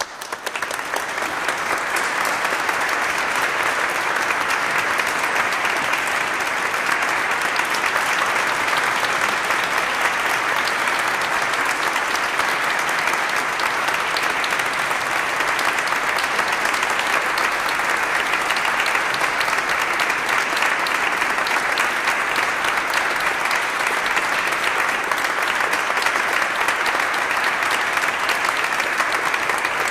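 Audience applauding, a dense steady clapping of many hands that swells in over the first second and then holds at an even level.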